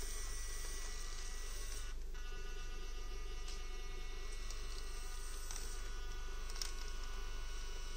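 Thin, steady whine of the Orlandoo Hunter OH32M02 1/32 crawler's small N20 105 rpm geared motor driving the truck slowly up a slope. The whine breaks off briefly about two seconds in.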